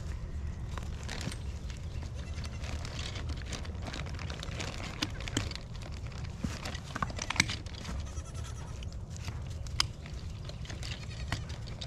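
Plastic electric-fence insulator clips clicking and scraping as they are fitted onto a steel T-post by hand, with several sharp clicks, the loudest about seven seconds in. A goat bleats faintly.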